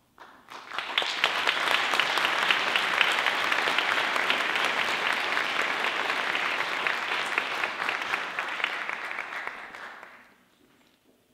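Audience applauding: it starts about half a second in, holds steady, and dies away near the end.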